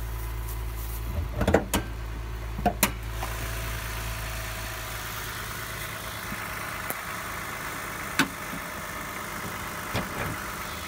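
Hood of a Toyota Sienna minivan being released and raised: a few sharp clunks and clicks from the latch and hood in the first three seconds, then the engine idling steadily under the open hood, with two more knocks later on.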